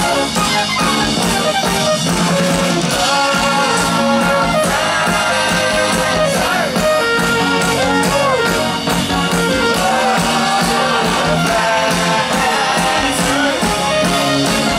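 Live band playing an instrumental stretch of an electro-pop song through a large PA: drum kit, bass guitar and keyboards in a steady rhythm, with a shaken tambourine.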